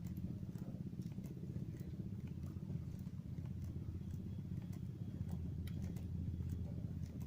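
A small engine running steadily with a low, fluttering rumble, and a few faint ticks over it.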